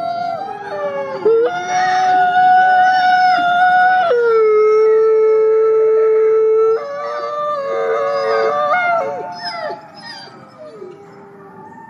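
Two wolves howling together in a chorus: long held howls at different pitches overlapping, each sliding between notes. The howling fades out over the last few seconds.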